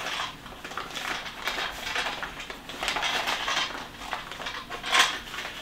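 Plastic parts of a 4moms baby product's hoop frame clicking and rattling as they are handled, with fabric rustling against the frame. A sharper click comes about five seconds in.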